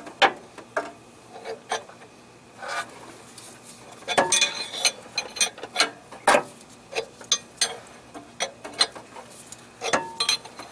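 Ratchet wrench clicking in irregular runs as it turns a harmonic balancer puller's forcing screw, drawing the crankshaft hub off a 2.3 L four-cylinder; the hub is now moving easily.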